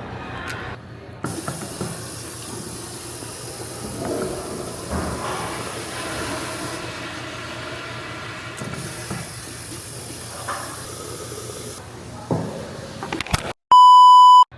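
Train-station ambience: a steady hiss with scattered faint clatter, then near the end a loud, steady electronic beep lasting just under a second.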